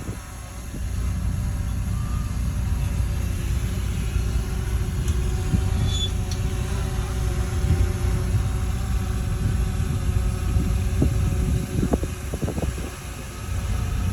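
Heavy diesel engine of earth-moving machinery running steadily, mostly deep low sound, with a few light knocks near the end.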